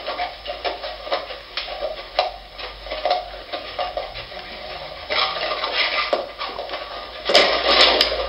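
A sleeping dog's paws and claws scrabbling and knocking on the floor as its legs paddle in its sleep: irregular clicks, several a second, with a louder rush of noise near the end.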